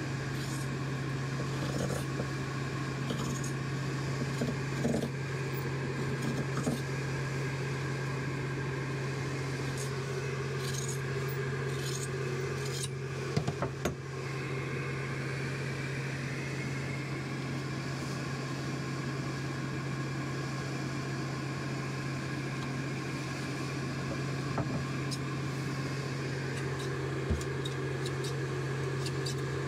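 Steady low hum of a running blower motor, with scattered light clicks and rustles of fiberglass cloth and mat being handled and cut into strips, a few sharper clicks about halfway through.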